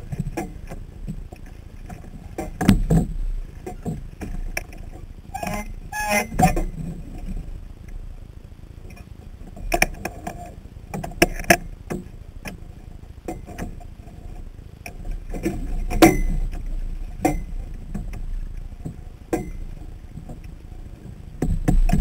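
Water slapping and splashing against a Sunfish sailboat's hull under way, with wind rumbling on the camera mounted to the boat. Sharp knocks and splashes come at irregular intervals, the loudest about 16 seconds in.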